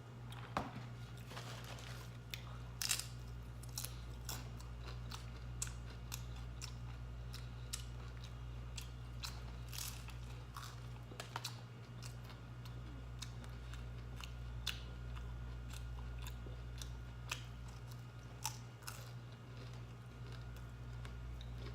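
A person eating tacos close to the microphone: chewing and biting, with many short crunches and mouth clicks scattered throughout, over a steady low hum.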